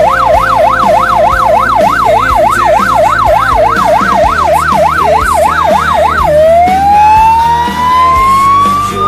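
Electronic fire-truck siren on a fast yelp, sweeping up and down about three times a second. About six seconds in it drops low and switches to a slow rising wail. A steady low musical backing runs underneath.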